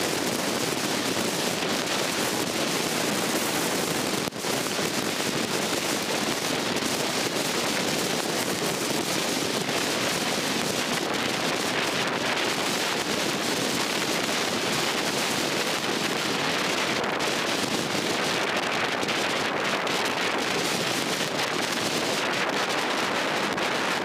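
Steady hiss of heavy rain falling, an even noise with no rhythm or pitch, briefly dipping about four seconds in.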